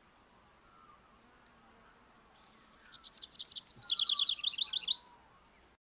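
Outdoor nature ambience: a faint, steady, high-pitched insect drone. About three seconds in, a bird gives a rapid run of short, high, falling chirps lasting about two seconds. The sound cuts off suddenly near the end.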